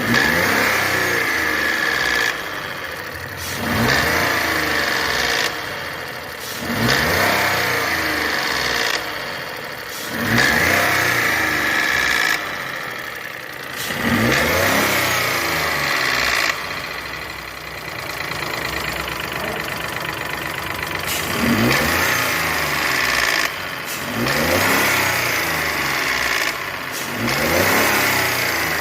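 Renault Sandero/Logan 12-valve three-cylinder engine revved repeatedly in short blips, each one rising in pitch and falling back to idle, roughly every three to four seconds. The engine has a noise complaint.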